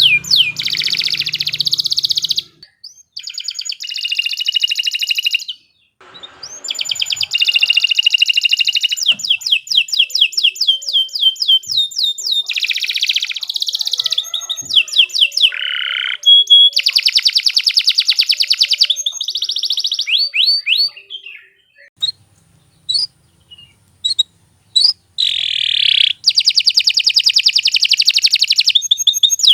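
Domestic canary singing long rolling phrases of fast, rapidly repeated high trilled notes, broken by brief pauses. About two-thirds of the way in the song thins to scattered single notes before the dense trills resume.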